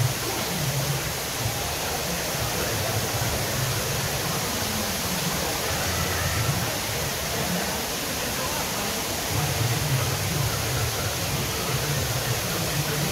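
Steady rushing noise of an indoor swimming-pool hall, water running in the pool's circulation under an echoing roof, with faint, indistinct voices.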